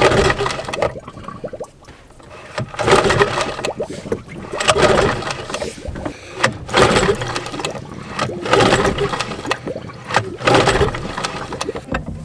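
Outboard motor being pull-started over and over, about six pulls a couple of seconds apart, each cranking the engine without it catching: the outboard has failed and won't start.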